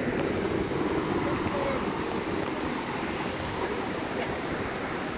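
Steady rushing background noise beside a light-rail train standing at the platform, with faint voices.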